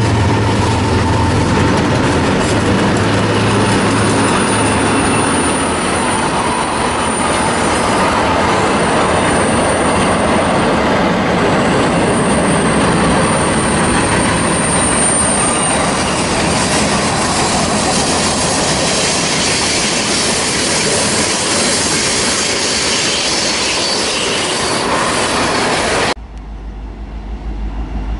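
A BNSF freight train's cars rolling past close by, a steady loud rumble of wheels on rail with high-pitched wheel squeal rising out of it twice. About two seconds before the end it cuts suddenly to a quieter low rumble of an approaching BNSF locomotive, growing louder.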